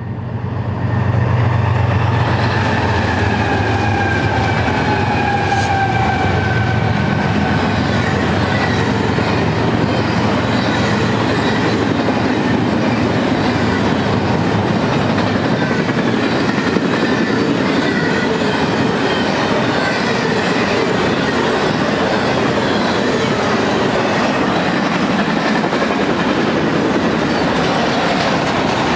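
Intermodal freight train of trailers and stacked containers rolling past. It opens with a heavy low rumble and a few falling whines, then settles into the steady rush and clatter of wheels on rail.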